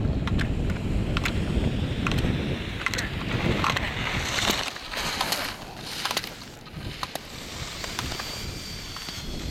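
Slalom skis carving on firm groomed snow: a rough scraping rush with wind on the microphone, broken by sharp clicks about once a second. The rush drops lower about two-thirds of the way through.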